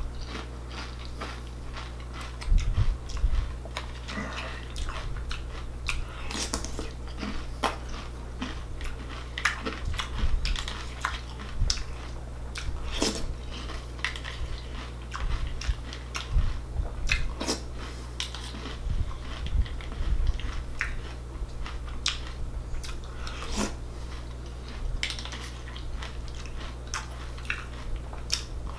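Close-up crunching and chewing of mouthfuls of Raisin Bran Crunch cereal, in irregular sharp crunches, with a plastic spoon clicking and scraping in a plastic bowl between bites. A steady low hum runs underneath.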